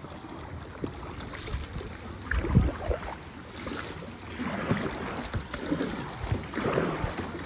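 Kayak paddle strokes: the blade dipping and pulling through river water with irregular swishes and splashes, and one loud thump about two and a half seconds in.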